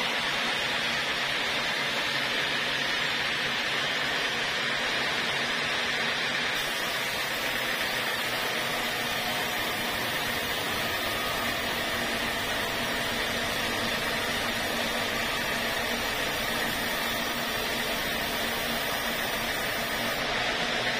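Band sawmill running steadily, its blade cutting lengthwise through an acacia log; from about six seconds in a brighter hiss joins while the blade is in the wood, easing off shortly before the end.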